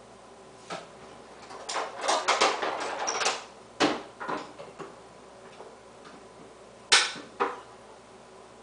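Kitchen handling of a tuna can: a quick clatter of rattling clicks for about two seconds, then a few separate sharp clicks, the loudest about seven seconds in with a second just after it.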